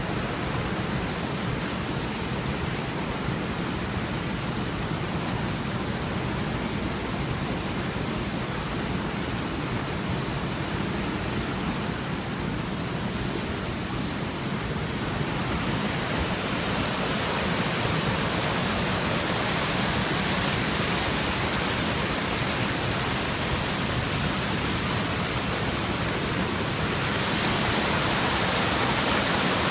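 Steady rush of fast-flowing river water at a weir, getting louder and brighter about halfway through and again near the end.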